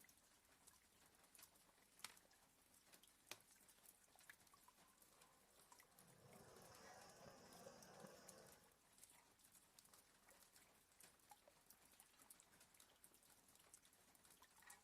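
Very faint rain with scattered light drip taps, and one soft, slow snoring breath from a sleeping border collie about six seconds in, lasting a little over two seconds.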